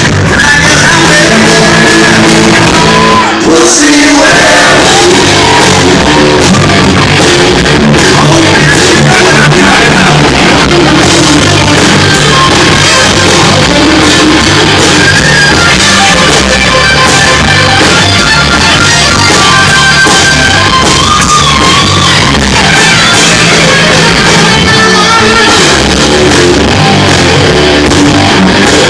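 Live rock band playing a song, with a singer's voice over the band.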